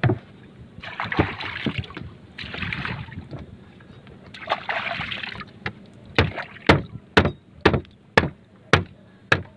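A few bursts of water splashing, then from about halfway through a steady run of chopping strikes, about two a second, as a blade cuts through a blue marlin's carcass on a wooden board.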